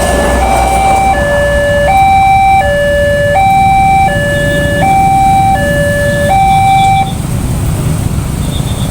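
Two-tone siren alternating evenly between a high and a low note, each held about three-quarters of a second, over the low rumble of road traffic; the siren stops about seven seconds in.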